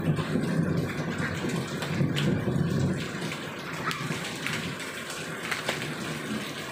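Water running and splashing in the rain, with a few sharp small knocks; it is louder in the first half.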